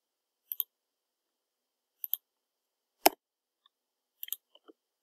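Computer keyboard keystrokes and mouse clicks while code is being edited: a few short, sharp clicks, some in quick pairs, spaced out over the seconds, with the loudest single click about three seconds in.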